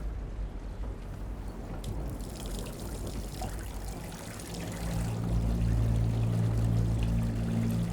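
Water pouring and trickling, with a low steady hum of several tones coming in about halfway through.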